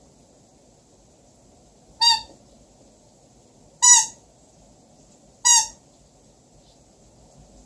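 Squeaky toy squeezed three times: three short, high squeaks about a second and a half to two seconds apart.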